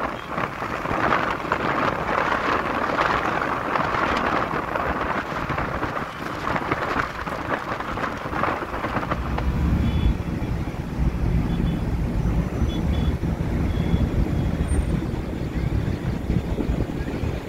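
Wind and road noise of a moving vehicle: a steady hiss that gives way, about nine seconds in, to a deeper low rumble.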